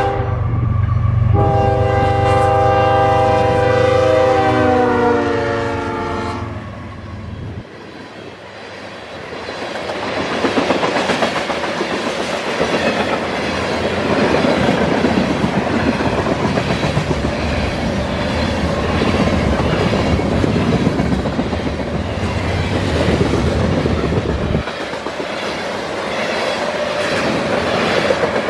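GE ES44AC freight locomotive sounding its air horn, a short blast then a longer one that drops in pitch as the engine passes, over the diesel's low rumble. Then covered hopper cars roll by with a steady clatter of wheels over the rail joints.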